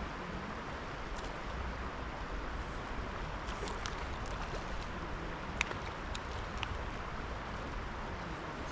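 Steady rush of river water flowing past, with a low rumble underneath and a scatter of faint small clicks in the middle.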